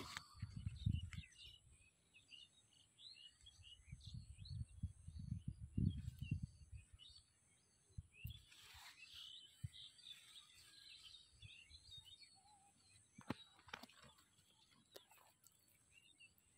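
Faint chirping of small birds, scattered short calls throughout. Low rumbles of handling noise on the phone's microphone come at the start and again a few seconds in.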